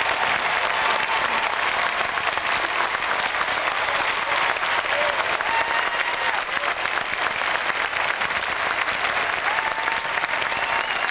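Large crowd applauding steadily, a dense, even clatter of many hands clapping at once.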